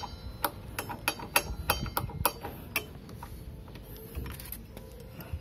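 Socket wrench turning a motorcycle front brake caliper's mounting bolt: sharp metal clicks, roughly two a second, through the first three seconds, then quieter.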